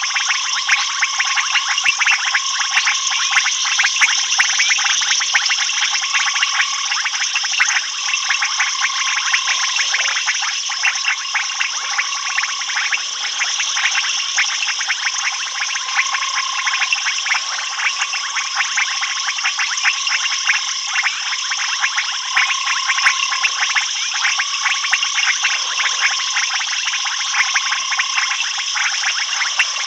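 Steady night chorus of frogs and insects: a dense mass of fast clicking calls over a continuous high trill, with a lower note repeating throughout.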